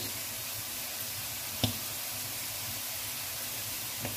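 Prawns, squid and chicken sizzling in stock in a wok, a steady hiss. One sharp knock about a second and a half in, and a fainter one near the end.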